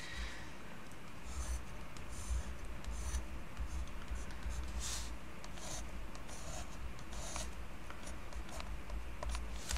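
A colored pencil scratching on painted paper in short, irregular strokes, over a low steady hum.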